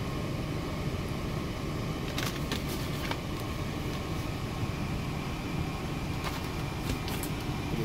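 Steady low rumble of background noise, with a few light clicks and crackles from cardboard-backed battery blister packs being handled.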